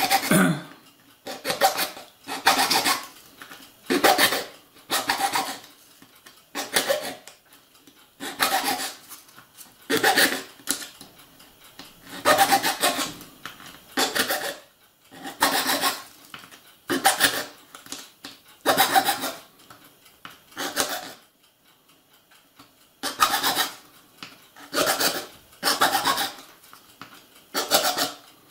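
A hand blade scraping and cutting away the plastic webs between the sleepers of a Piko A H0 model track piece, in repeated short rasping strokes about one a second, with a pause of about two seconds about three quarters of the way through.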